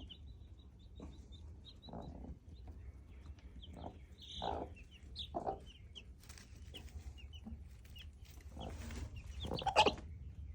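Chicks peeping in many short high chirps, with several louder, lower clucks from a chicken.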